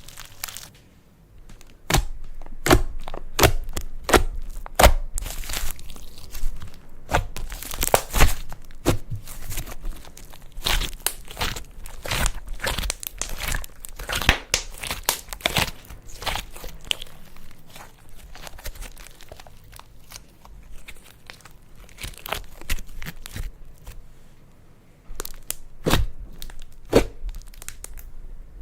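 Slime being squished and stretched by hand, with many sharp crackling pops and clicks. There are short quieter gaps about a second in and a few seconds before the end.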